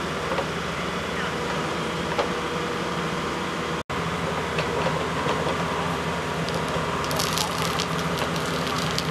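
Wacker Neuson 9503 wheeled excavator's diesel engine running steadily as it works its boom, with a quick cut-out of all sound a little under halfway through. About three-quarters of the way in comes a flurry of sharp scraping and clicking, like shovels working gravel.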